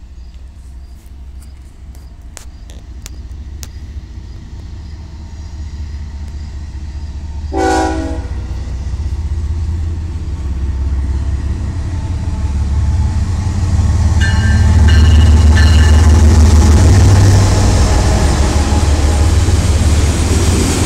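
CN freight train's diesel locomotive approaching with a low rumble that builds steadily, with one short horn blast about eight seconds in. The locomotive passes loudest around fifteen seconds, and then autorack cars roll by with a hissing rush of wheel and rail noise.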